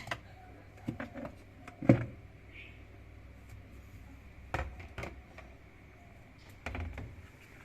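Scattered knocks and clicks of hard parts being handled, about half a dozen separate strokes, the loudest about two seconds in.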